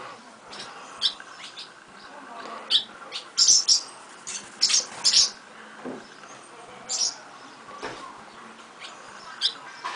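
Young barn swallows chirping: short, high, irregular chirps, thickest and loudest around three to five seconds in.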